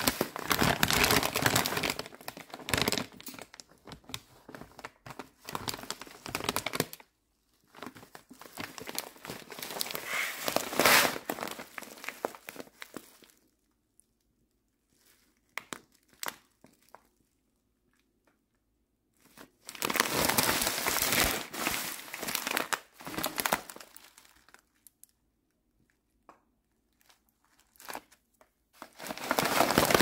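Plastic bag of cockatiel seed mix crinkling as it is handled and turned over, in several long bursts with quiet gaps of a few seconds between them.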